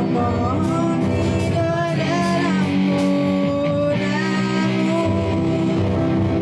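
A student band playing a rock song live: a girl's voice sings through a microphone in two phrases over a drum kit, electric guitar and keyboard, with regular drum and cymbal strikes.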